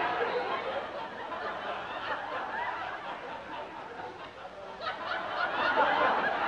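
Audience laughter at a comedy bit, easing off in the middle and swelling again about five seconds in.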